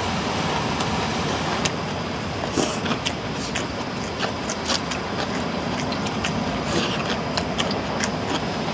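Pork belly sizzling on a hot griddle: a steady hiss broken by frequent sharp pops and crackles of spitting fat.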